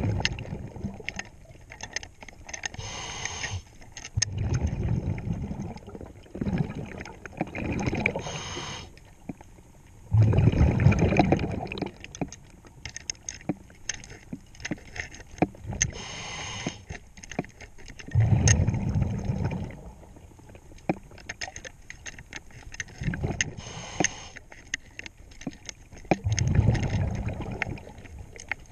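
Diver's scuba regulator breathing underwater: a low rush of exhaled bubbles every five to eight seconds, with a shorter bright hiss of inhalation between. Small clicks and scrapes of hands working on a propeller-shaft zinc anode are scattered throughout.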